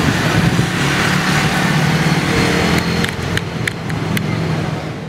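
Street traffic: the engines of passing vehicles running steadily, with a few sharp clicks in the second half.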